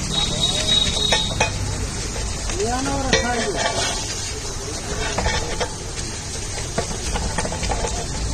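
Metal potato masher pounding and scraping vegetables against a large hot iron tawa, with irregular knocks of metal on metal over a steady sizzle. This is the mashing stage of cooking pav bhaji bhaji.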